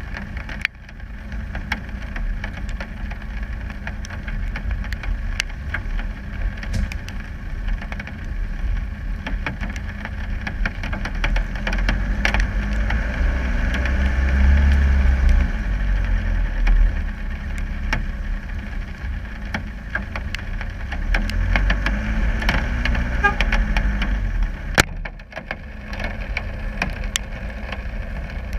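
Land Rover Discovery 300 Tdi's four-cylinder turbo-diesel engine running under load off-road, getting louder and working hardest midway as it climbs a slope. Scattered clicks and knocks throughout, with one sharp knock near the end.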